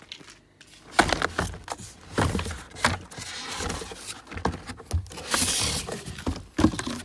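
Cardboard box and packaging handled while a new chainsaw is lifted out: repeated knocks and scrapes against the cardboard, with a stretch of rustling paper about five seconds in.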